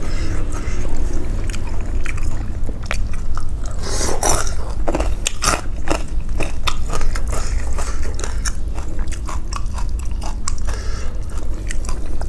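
A person eating pork noodle soup close to the microphone: irregular wet chewing and mouth clicks with noisy slurps, densest about four to six seconds in.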